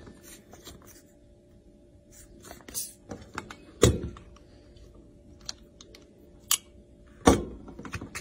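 Scattered light clicks and clinks of china dishes being handled. There is a louder clink about four seconds in and another just past seven seconds.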